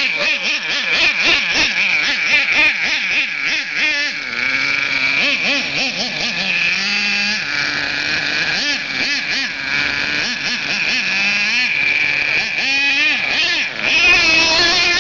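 Axial .28 two-stroke nitro glow engine of an HPI Savage X monster truck running at a high-pitched whine, revving up and down repeatedly as the truck is driven. A lower engine note also runs beneath it.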